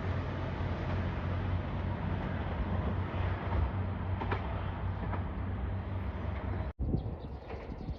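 Train running past with a steady low rumble and rail noise. It cuts off suddenly about seven seconds in, leaving fainter wind noise on the microphone.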